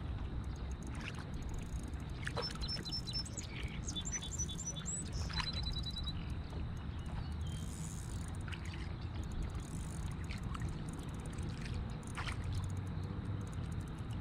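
Steady low rumble of wind on the microphone and water against a kayak, with a bird giving a run of high chirps a couple of seconds in and a few faint ticks.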